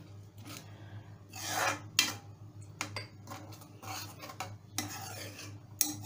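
Metal ladle scraping and stirring thick curry with peas in a metal kadai, with a longer rasping scrape about a second and a half in and several sharp clinks of the ladle against the pan.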